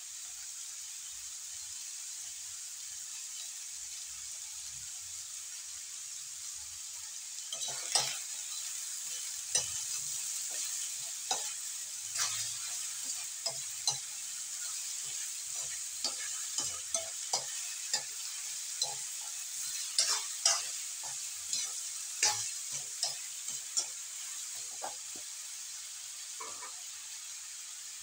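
Bottle gourd strips sizzling in a metal wok with a steady high hiss. From about eight seconds in, a spatula stirs them, scraping and tapping irregularly against the wok.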